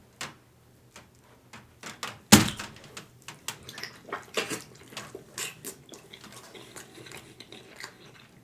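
Small wet drips and clicks of lemon juice being squeezed onto a smoked turkey leg, with one sharp knock about two seconds in. Irregular close-up eating sounds follow: wet mouth clicks and chewing.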